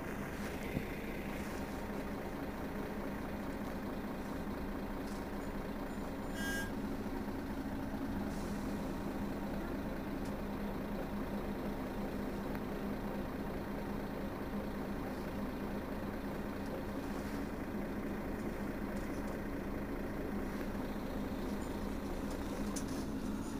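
Mercedes-Benz Citaro Facelift city bus engine idling steadily while stationary, with a brief high beep about six seconds in.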